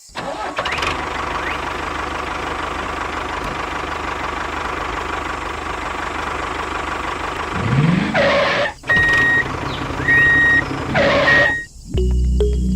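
A small engine running steadily, then revving up about eight seconds in, with three short high-pitched beeps over it near the end.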